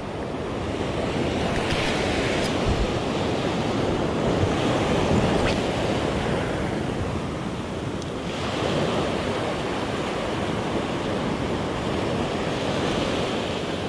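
Sea surf washing against a rocky shore, swelling and easing every few seconds, with wind on the microphone.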